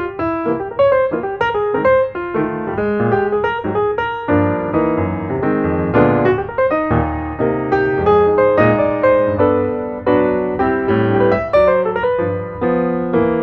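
Background music: piano playing a steady run of quick, overlapping notes.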